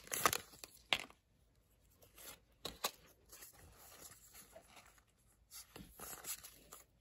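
Crinkling of a Pokémon booster pack's foil wrapper as the cards are pulled out, loudest in the first second with a couple of sharp clicks. Softer rustling and slipping of the card stack follows as the cards are handled, with another brief rustle near the end.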